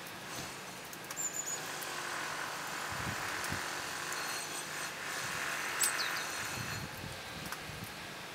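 Small birds under the eaves giving two brief high chirps, one about a second in and one near six seconds, over a steady outdoor hiss.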